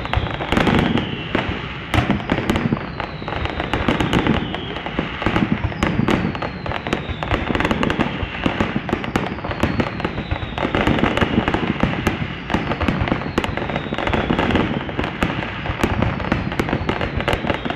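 Fireworks going off without pause: many sharp bangs and crackles over a low rumble, with a high falling whistle about every two seconds.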